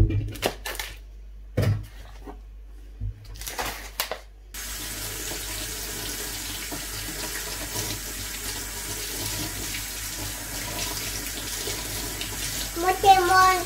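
A kitchen tap runs into a stainless steel sink as button mushrooms are rinsed by hand under the stream, starting about four and a half seconds in. Before the water comes on there are a few light knocks and clatters as the mushrooms and their plastic tray are handled.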